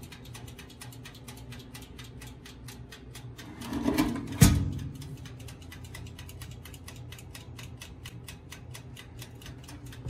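Steady rapid ticking, several ticks a second, with a single sharp clunk about four and a half seconds in as the toaster oven's glass door is shut.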